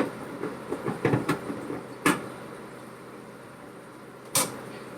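Kitchen handling noise: a few sharp knocks and clatters of dishes, pans or cupboard doors, with the loudest knock near the end.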